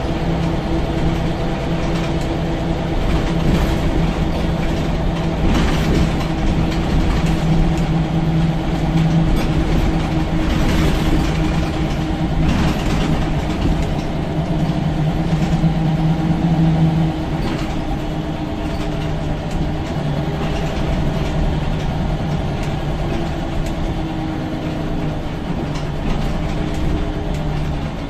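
Scania L94UB single-decker bus running under power, heard from the rear seats inside the cabin: the 9-litre five-cylinder diesel engine gives a steady drone that eases off a little over halfway through, and its pitch falls near the end as the bus slows. Occasional short rattles and knocks from the body.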